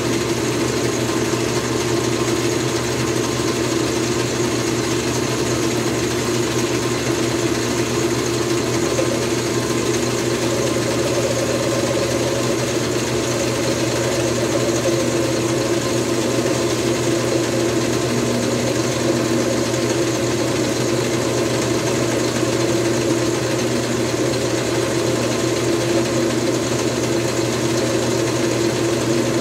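Small metal lathe running steadily with an even motor and gear hum while a bar held in the chuck is turned down.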